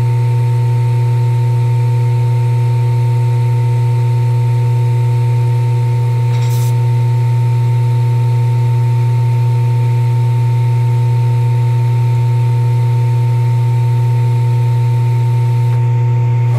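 A loud, steady low hum with fainter higher tones above it, unchanging throughout, with one faint click about six and a half seconds in.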